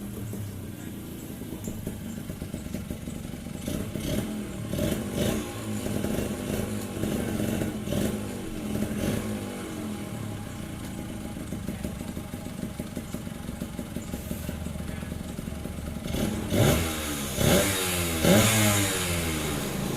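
Suzuki TRS two-stroke motorcycle engine running as the bike is ridden at low speed, its pitch rising several times as the throttle opens, most strongly near the end.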